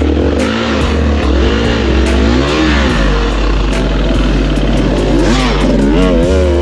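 Enduro motorcycle engine revving up and down as the throttle is worked, its pitch rising and falling several times.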